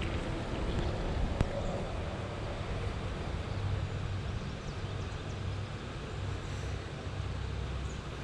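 Steady low rumble of outdoor background noise, with a single sharp click about a second and a half in.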